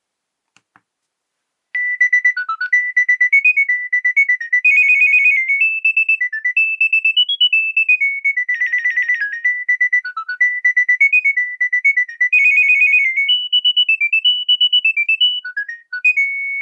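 Nokia 7210 polyphonic ringtone playing a quick, bright melody of high synth notes, starting about two seconds in after two faint ticks.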